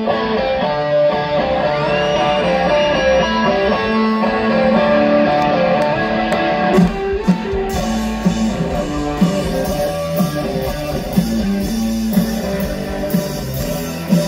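Live rock band playing: an electric guitar riff of picked notes, with drums and bass coming in about halfway through.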